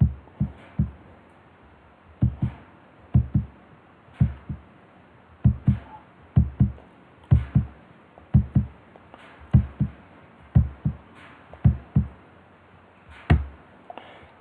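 Computer mouse clicking, short dull knocks singly or in quick pairs and threes about once a second, as a spline is drawn point by point.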